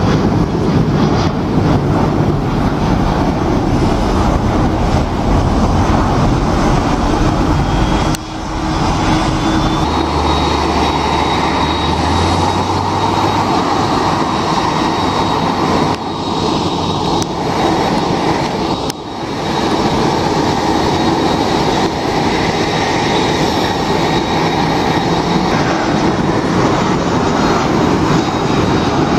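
Jet airliner engines running loud and steady as aircraft climb out and taxi. The noise changes abruptly a few times where the footage cuts from one aircraft to the next.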